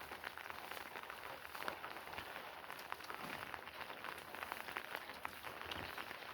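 Steady rain falling and pattering on a surface, with many small drop ticks.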